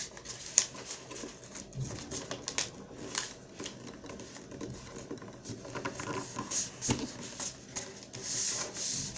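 A sheet of paper being folded and creased by hand on a tabletop: scattered light rustles, taps and crackles as fingers press the folds, with a longer rustle near the end.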